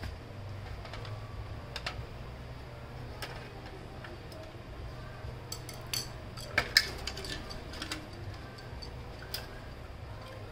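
Scattered light clicks and taps of a screwdriver and hard plastic parts as a printer's laser scanner unit is unscrewed and handled, with a cluster of sharper clicks about six to seven seconds in. A steady low hum runs underneath.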